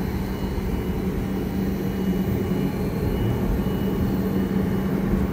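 Boeing 737 MAX 9 cabin noise during taxi: its CFM LEAP-1B engines at low thrust heard from inside the cabin as a steady low drone with a constant hum.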